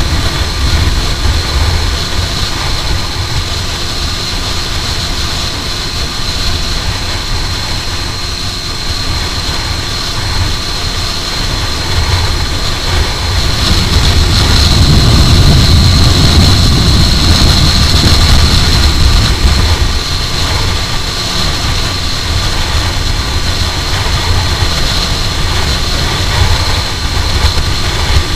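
Aprilia RS4 125's single-cylinder four-stroke engine running at steady revs at speed, under heavy wind rumble on the microphone. The wind rumble grows louder about halfway through and eases off several seconds later.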